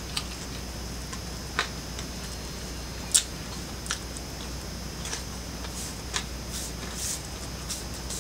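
Mouth sounds of a person eating soft stuffed bread close to the microphone: scattered wet smacks and clicks, the loudest about three seconds in, over a steady low hum.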